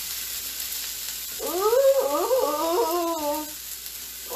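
Shredded hash browns sizzling steadily on an electric griddle. About a second and a half in, a wavering, wordless vocal sound like a drawn-out sung 'ooh' rises over the sizzle for about two seconds; it is the loudest sound here.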